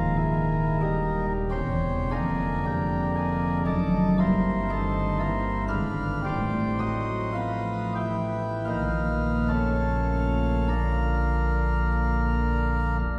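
Church organ playing sustained chords, with a deep bass note joining about nine seconds in.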